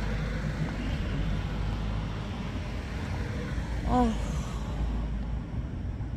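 A street cat's single short meow about four seconds in, over a steady low background rumble.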